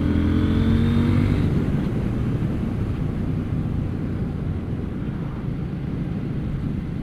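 KTM 790 Duke's parallel-twin engine pulling under acceleration, rising gently in pitch over the first second and a half, then giving way to a steady rush of wind over the helmet-mounted microphone as the bike rides on.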